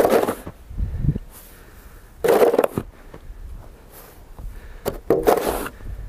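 Snow shovel blade scraping over snow-covered pavement as it pushes and lifts snow, in three main strokes: one at the start, one a little past two seconds in and one about five seconds in.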